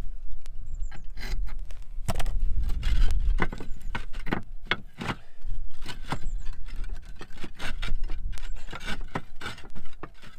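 Clay roof tiles clinking and scraping against each other and the metal roof hook as a tile is handled and worked into place: a run of irregular sharp clicks and knocks.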